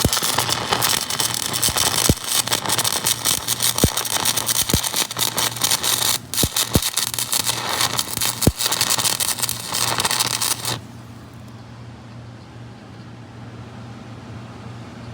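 Stick-welding arc crackling and sputtering steadily on the cracked blade of a bulldozer, the electrode burning and laying down slag-covered weld. The arc stops about eleven seconds in, leaving a low steady hum.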